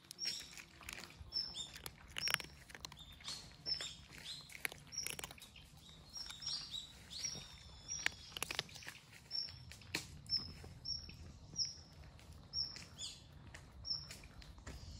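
Stray cats eating up close, lapping milk and crunching dry kibble in a run of sharp wet clicks and crunches. Behind them a bird chirps over and over, a short high note about once a second.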